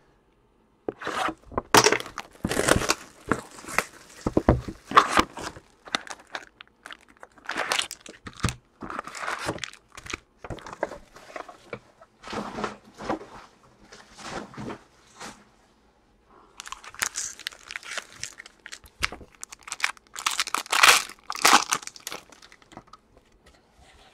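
Plastic wrapping crinkling and tearing as a Panini Prizm basketball card box is unwrapped and opened and its wrapped packs are pulled out and handled, in irregular bursts with a short pause past the middle.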